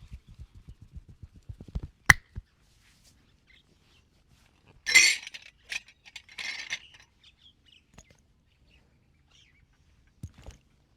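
Fast rhythmic massage strokes, hands patting or pummelling about nine times a second, stop about two seconds in with one sharp crack. Two short noisy hand bursts follow in the middle, and a couple of soft thumps come near the end.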